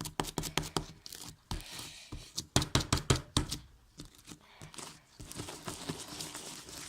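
Homemade slime being kneaded and stretched by hand, giving sticky clicks and pops in quick clusters with softer squishing between. The slime is stiff and rough, which she puts down to too much baking soda.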